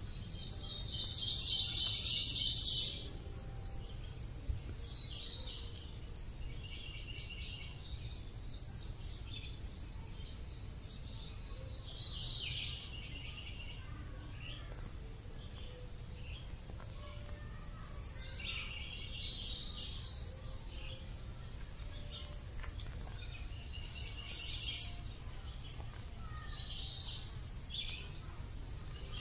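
Outdoor ambience of birds chirping in repeated high, rapid trills every few seconds, the loudest about a second in, over a steady low background rumble.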